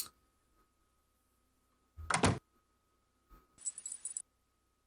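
A single sharp click at the start, then two short sound effects from the Microsoft Bob software on a 486 PC: a brief loud one about two seconds in and a noisier, jingly one from about three and a half to four seconds.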